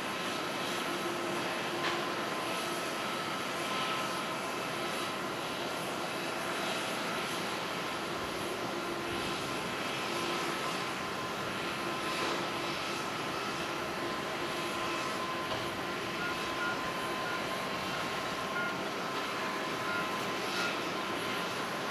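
Boeing 787-9 airliner's jet engines running at low power as it rolls out along the runway after landing: a steady, even engine noise with a faint constant whine.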